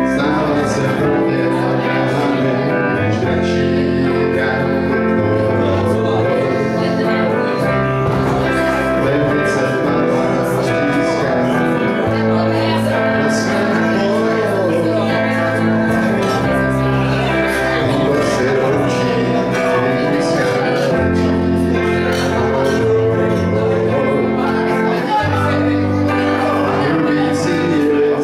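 Live rock band playing a song: electric guitars over a bass line, with a man singing lead into the microphone.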